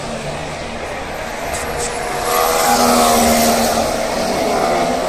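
A racing car's engine passing on the circuit. Its note swells and glides in pitch about halfway through, over a steady background of engine noise.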